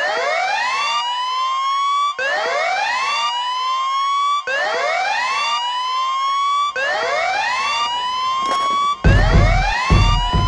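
Police-style siren sweeping up in pitch again and again, restarting about every two and a quarter seconds, used as the intro of a hip-hop track. A heavy bass beat comes in about nine seconds in.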